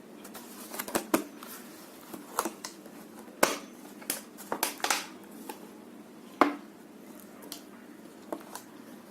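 Close-miked eating sounds: a person chewing, with about a dozen irregular sharp crunches and mouth clicks, the loudest a little after one second in and again at about three and a half and six and a half seconds.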